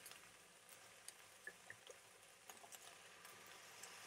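Near silence: chicken and courgettes frying gently in a pan, a faint steady sizzle with a few small ticks.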